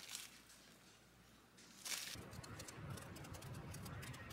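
Soft crinkle of the paper wrapping around a peach as it is handled, twice, the second time louder just before halfway. Then a knife peeling the peach's skin makes faint, quick ticks over a low hum.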